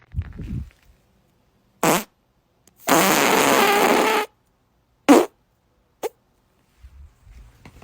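A series of separate farts: a low rumbling one at the start, a short one about two seconds in, a long, airy one lasting well over a second from about three seconds in, then two short ones, the last very brief.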